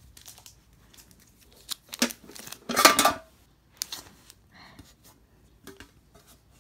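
A metal Pokémon card tin being handled and its contents taken out: scattered clicks and clanks of thin tinplate, with a louder clatter about three seconds in.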